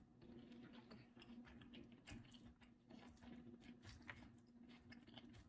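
Faint chewing and mouth sounds of a person eating, heard as scattered soft clicks over a faint steady low hum; otherwise near silence.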